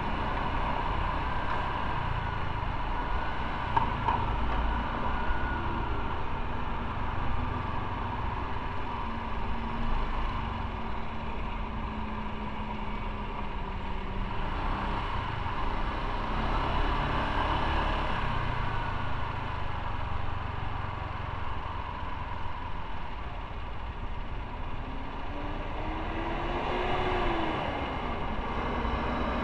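Motorcycle engine running with road and wind noise while riding. Near the end there is a rising, then falling engine note.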